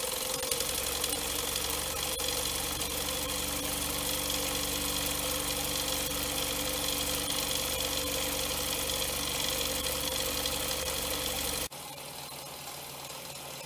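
Small Doll 320/5 toy vertical steam engine running steadily, heard close up: a steady hiss with a mechanical whir. About two seconds before the end the sound drops abruptly to a quieter level.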